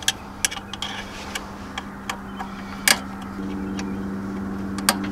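Metal clicks and taps of a 5mm Allen key working the bolts on a Nissan Titan's throttle body, with two sharper snaps, one near three seconds in and one near the end. A steady hum comes in about three and a half seconds in.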